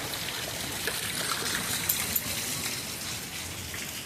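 Steady rain falling, an even hiss, with two sharp taps about two seconds in.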